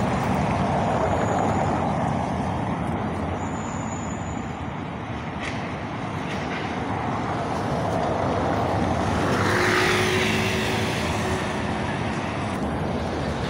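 Street traffic: cars driving past, with one passing close and loudest about ten seconds in before fading away.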